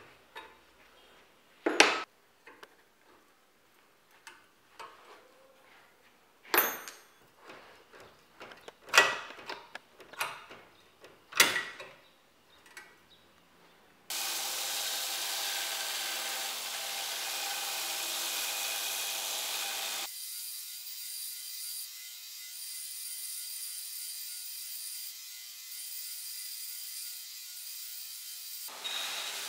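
Scattered sharp metal knocks and clanks from hand-working a steel flat bar. About halfway through, a workshop machine starts running with a steady noise. Its tone changes twice, once about two-thirds through and once just before the end.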